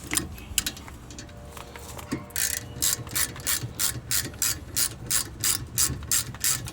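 Hand ratchet clicking as the 12 mm bolts of a 2007 Acura MDX rear brake caliper are backed out. A few scattered clicks at first, then about two seconds in a steady run of quick clicks, about five a second.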